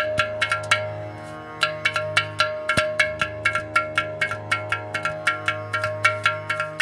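Ghatam, the South Indian clay-pot drum, struck rapidly with the fingers and palm in a fast rhythmic pattern, each stroke ringing brightly. There is a short pause about a second in, then dense strokes resume, over a steady sustained drone tone.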